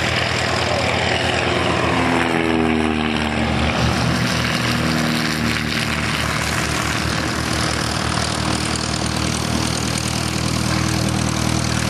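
Light aircraft's propeller engine passing by, its pitch falling between about two and four seconds in, over a steady low engine drone.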